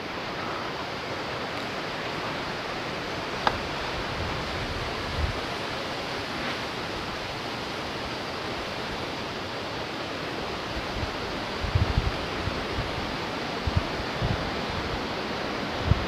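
Strong wind rushing steadily through the tree foliage. A single sharp click comes about three and a half seconds in, and a few low thumps near the end.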